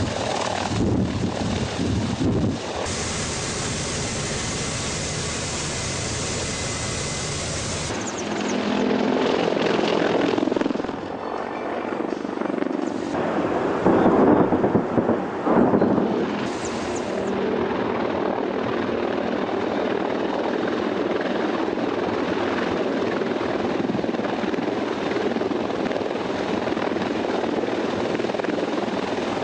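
Mil Mi-28 attack helicopter's rotor and turbine engine noise. The sound changes abruptly about eight seconds in, is loudest for a couple of seconds around the middle, then settles into a steady drone.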